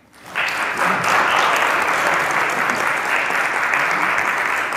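Audience applauding, starting a moment in and quickly rising to steady, even clapping.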